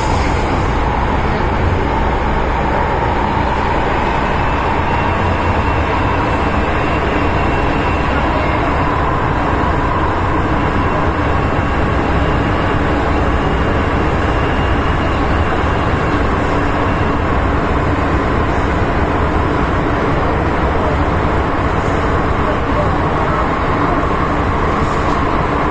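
Cabin noise of an MTR M-Train metro car running through a tunnel: a steady rumble of wheels on rails and car body. A faint high whine holds its pitch through the middle and fades away about two-thirds of the way in.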